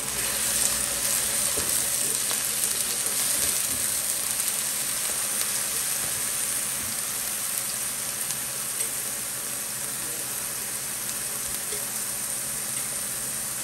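Onions and a freshly added paste frying in hot oil in a pan, a steady sizzling hiss with fine crackle. It is stirred with a silicone spatula at the start, and the sizzle is a little louder over the first few seconds before easing off slightly.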